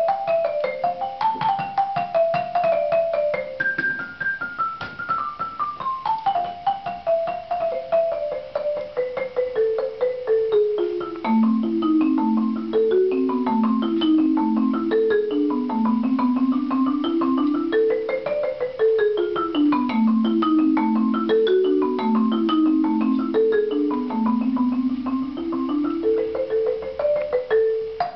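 Marimba played solo with mallets: a fast run of single struck notes sweeps down from the upper register to the low bars, then rapid rippling figures rise and fall through the low and middle register.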